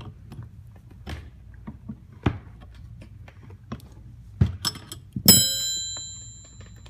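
A steel wrench and brass fittings clicking and knocking a few times while a brass adapter fitting is tightened onto a strut pump. A little over five seconds in, a steel wrench clanks sharply against metal and rings for about a second.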